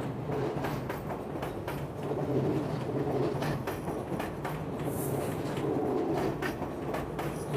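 R46 subway cars pulling out along an elevated steel structure: wheels clicking irregularly over rail joints over a steady low hum and rumble.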